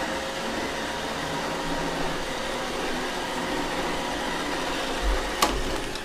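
iRobot Roomba 675 robot vacuum running, a steady whir of its vacuum motor and brushes with a light whine. A single click about five seconds in, then the sound fades.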